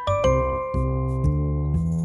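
Gentle instrumental background music: a melody of held notes that change about every half second.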